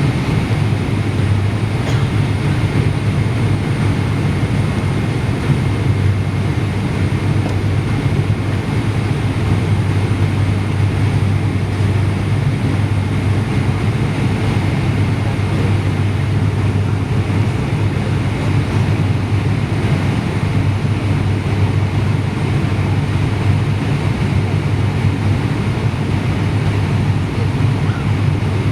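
Airliner cabin noise: the steady, even drone of jet engines and airflow heard from inside the passenger cabin, with a faint steady whine above it.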